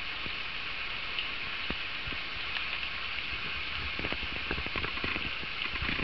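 Steady hiss of falling water from a small waterfall running with a light flow. A cluster of small clicks and crackles sounds over it from about four seconds in.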